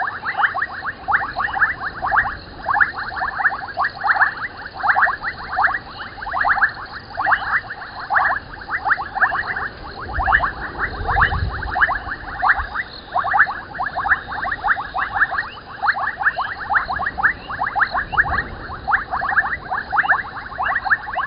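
A dense evening chorus of frogs at a waterhole: rapid trains of clicking, pulsed calls overlapping without a break. A brief low rumble comes about halfway through.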